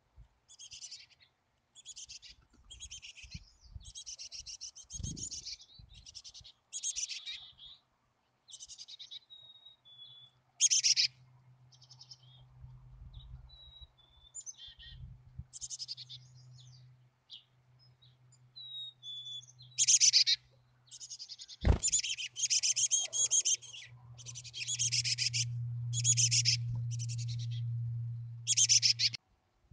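Black-capped chickadee nestlings giving harsh, buzzy begging calls from the nest cavity, many in a row, asking to be fed. A sharp knock sounds about two-thirds of the way through, and a low steady hum runs under the later calls.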